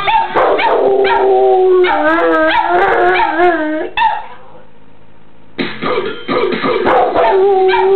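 A Rottweiler and a second dog howling together in long, wavering, overlapping howls, with a break of about a second and a half a little after four seconds in before the howling starts again.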